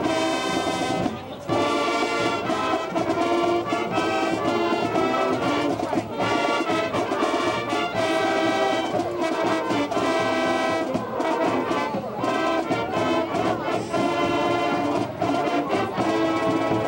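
High school marching band brass section playing held chords, with one short break about a second in.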